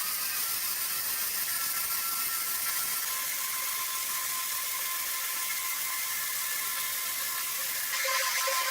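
Sawmill machinery running with a steady whir and a high, even whine; it grows a little louder and a lower tone joins near the end.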